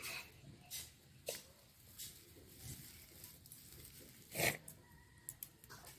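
Faint, scattered rustling and scratching of dry broom-grass stalks being handled and bundled by hand into a broom, with one louder rustle about four and a half seconds in.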